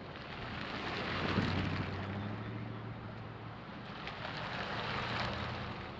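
Two vehicles driving past close by, one after the other, with engine and tyre noise. The first swells and fades about a second in. The second, a Chevrolet pickup truck, passes about five seconds in.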